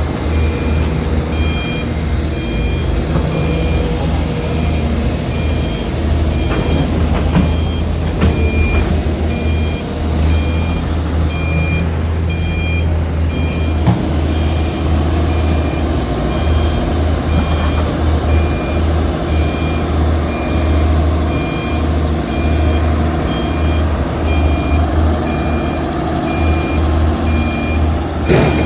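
Heavy mining machinery at work: a reversing alarm beeps over and over above the steady low drone of large diesel engines, with a few sharp knocks, the loudest near the end.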